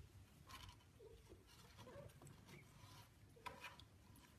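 Faint rustling and a few tiny squeaks from a litter of young kittens squirming against each other on a blanket.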